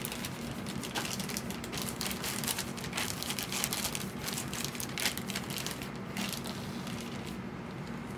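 Plastic zip-top bag crinkling and crackling irregularly as hands press and rub it flat over wet paper.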